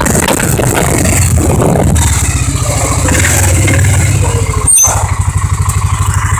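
Small vehicle engine running steadily while the vehicle is driven, a low pulsing throb. About five seconds in, a sharp knock with a brief high squeak.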